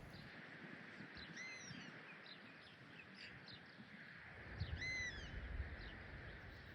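A small bird calling twice, about three and a half seconds apart, each time a short phrase of quick arching high notes, with a few fainter chirps between, over a faint steady outdoor hiss.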